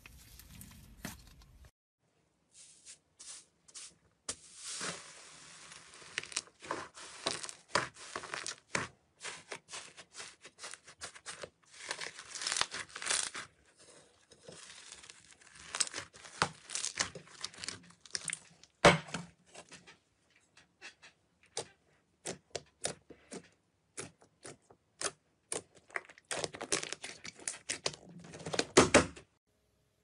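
Fluffy slime being stretched, torn and squeezed by hand, making dense irregular crackles and small pops. One louder pop comes about two-thirds of the way through.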